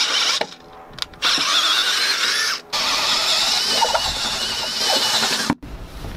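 Cordless drill boring a 1-inch hole through a wooden Samson post, running in three bursts with short stops between. Its high whine wavers as the bit works in the wood, and it cuts off suddenly near the end.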